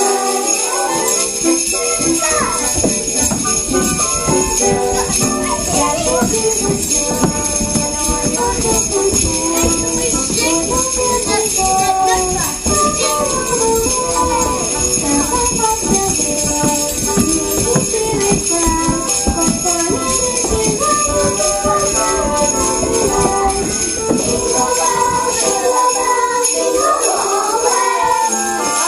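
Sleigh bells jingling continuously in a piece of music, over a melody and a low beat that drops away a few seconds before the end.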